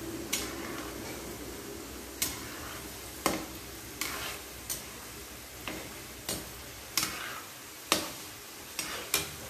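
Potato fries sizzling in hot vegetable oil in a kadai during their second frying to make them crisp, with a steady hiss. A metal slotted spoon stirring them clinks and scrapes against the pan about a dozen times at an irregular pace, louder than the sizzle.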